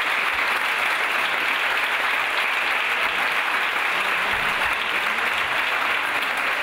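An audience applauding, with dense, steady clapping.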